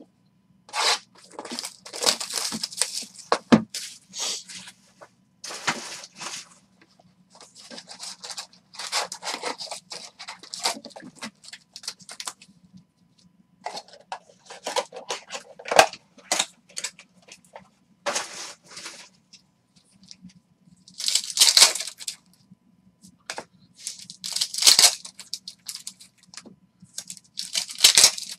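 Wrapping and foil trading-card packs from a 2019 Panini Contenders football box being torn open and crinkled by hand, in repeated short bursts of ripping with pauses between.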